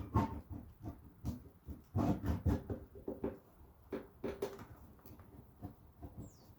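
Irregular knocks, taps and rattles of parts being handled and worked into place: a fuel pump assembly and its hose being fitted inside a gas tank, with a short squeak near the end.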